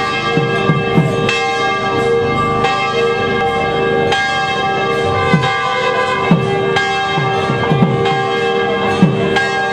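Temple bells ringing continuously, struck over and over so that their steady tones overlap, with short low strokes sounding underneath.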